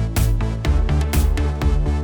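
Electronic dance background music with a heavy bass line and a steady beat of about two beats a second.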